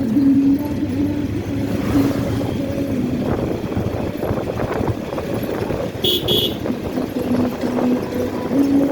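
Motorcycle engine running with road and traffic noise, a steady wavering hum. About six seconds in, a brief high-pitched horn beep sounds twice in quick succession.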